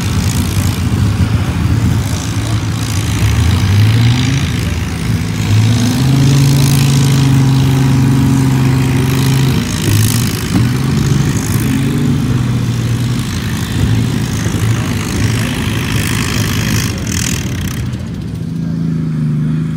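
Antique tractor engine running under load while pulling a sled at a tractor pull, its pitch rising and falling. The high-pitched noise drops away near the end.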